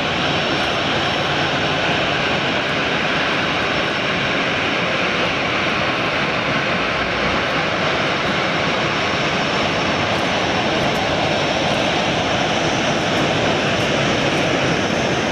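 Boeing 737 BBJ's two CFM56-7 turbofan engines running at taxi power as the jet taxis and turns: a steady broad rush with a thin, steady high whine on top.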